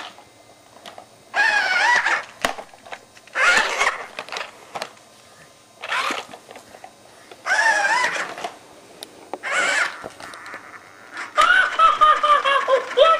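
A toddler's high-pitched vocal sounds: short calls and squeals with a bending pitch, about six times with pauses between, the last one longer.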